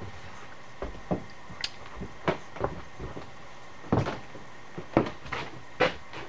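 Irregular knocks and clinks of metal tools and parts being handled and set down, about a dozen in a few seconds, the loudest a little past the middle.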